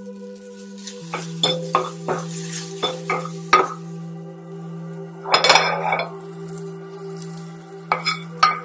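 A spatula clicking and scraping against a stainless steel frying pan as green bell pepper strips are tossed, in a quick string of clinks, then a louder scraping rush about five and a half seconds in as the peppers are scraped out of the pan onto a plate, and two more clinks near the end. Soft background music of held tones plays underneath.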